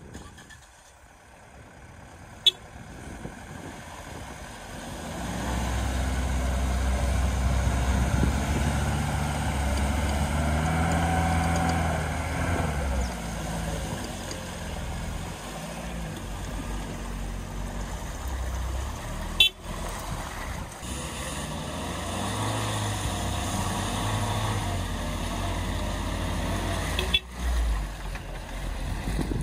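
Engines of a Lada Niva and a Suzuki Jimny labouring under load as the Niva tows the mud-stuck Jimny out on a strap. The pitch rises and falls with the throttle, in two long pushes. Two short sharp knocks come in the second half.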